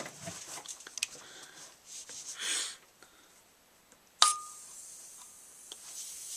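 Paintball marker being pressurised: a sharp pop about four seconds in as the air reaches the gun, then a steady hiss of gas escaping, a leak from the macro line fitting. Before that, a few light handling clicks.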